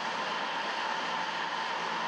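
A flat-belt-driven New Haven metal planer from the 1880s–90s running, its table carrying a steel plate back and forth under the tool. It makes a steady, even mechanical whirring hiss.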